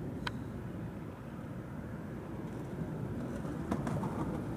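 Steady low outdoor rumble, with a few light clicks near the end.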